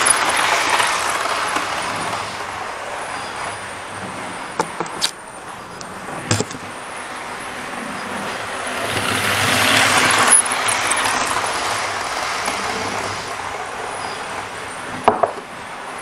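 OO gauge model train running round the layout, its motor and wheels making a whirring rattle on the track that swells as it passes close at the start and again about ten seconds in. A few short sharp clicks come in between.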